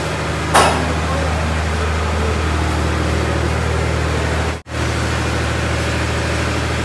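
Engine running steadily at idle, a low even hum, with one short sharp knock about half a second in and a momentary break in the sound about two-thirds of the way through.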